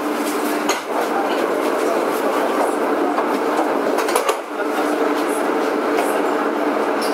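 Prague Metro M1 train running at speed, heard from inside the car: a steady rumbling noise with a constant hum, and a few sharp clicks about a second in and about four seconds in.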